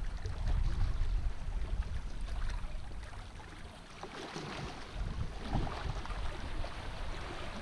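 Wind buffeting the microphone over small waves lapping against a rocky lakeshore, a low rumble that is strongest in the first couple of seconds and then eases.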